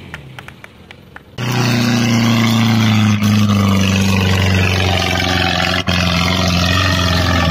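An off-road Jeep's engine working hard under load as it climbs a steep dirt slope. It comes in suddenly about a second and a half in, loud and steady, with its note sagging slightly in pitch as it labours.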